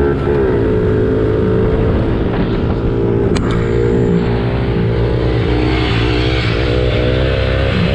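Small dirt-bike engine running at a steady engine speed, with the revs dipping and picking back up a couple of times. A single sharp click about three and a half seconds in.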